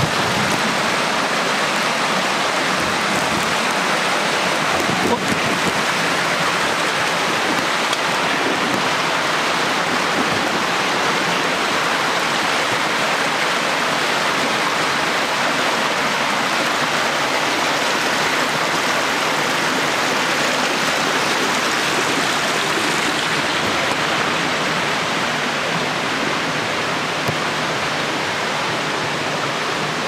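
Steady rush of a rocky jungle stream pouring over boulders and small cascades.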